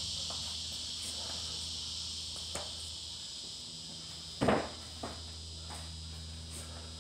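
A few thuds of feet and body landing on rubber floor mats during burpee box jump-overs, the loudest a double thud about four and a half seconds in, over a steady high-pitched hiss.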